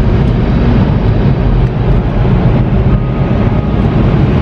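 Steady low rumble with a hiss over it, the running noise of a car heard from inside the cabin.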